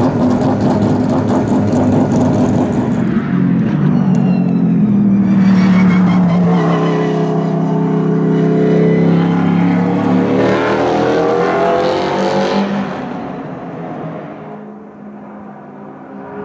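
Ginetta LMP3 race car's 5.0-litre Nissan V8 running loud at low revs, then accelerating hard, its note climbing and dropping through several gear changes before fading away near the end.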